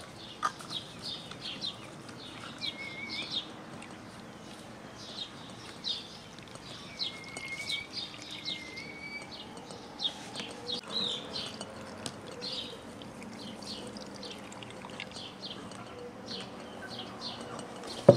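Small birds chirping over and over, with a few short whistled calls among them. At the start, pickling liquid is poured from a plastic measuring jug into a glass jar of peppers. A single sharp knock comes near the end.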